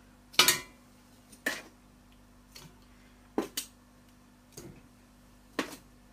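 Browned beef bones going into a stainless steel pressure-cooker pot, clanking against the metal: about six sharp, separate knocks over several seconds, the loudest about half a second in.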